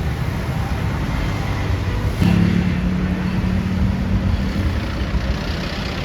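Large tour bus passing with its engine running. About two seconds in, a deep steady tone starts suddenly and fades over the next couple of seconds.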